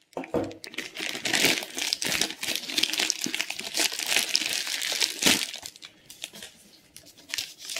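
Plastic mailer bag crinkling and rustling as hands open it and pull out a foam-wrapped item; the crinkling dies down about six seconds in, leaving a few faint clicks.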